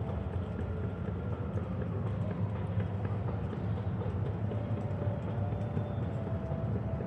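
Night city ambience: a steady low rumble, with a few faint steady tones above it and scattered faint clicks.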